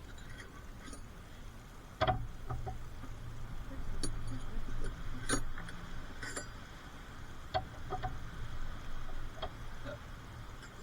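Scattered metallic clicks and clinks of hand tools and steel parts being handled during car suspension and steering work, with a sharp click about two seconds in followed by a low hum for a few seconds.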